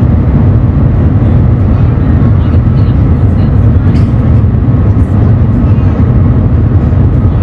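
Shanghai Maglev train running at speed, heard inside the passenger cabin: a loud, steady low rumble and rush with no rhythm.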